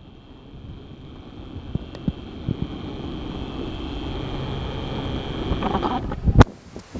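Hurricane-force wind gusting across the microphone, a low rush that builds over about six seconds, with a single sharp knock near the end.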